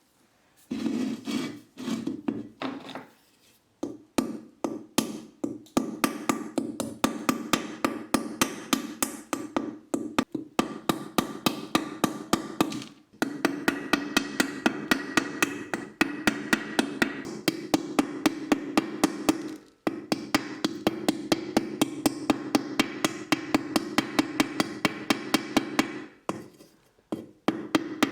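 Repeated hammer taps on a steel helmet shell, in long even runs of about three strikes a second with short pauses between runs.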